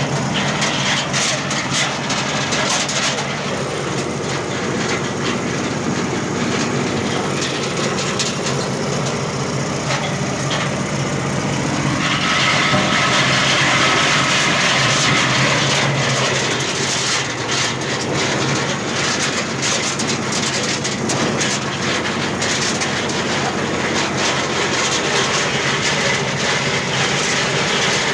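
Areca nut peeling machine running, a loud steady mechanical drone with a dense rattling noise over it. The sound grows harsher and louder about twelve seconds in for a few seconds, then settles back.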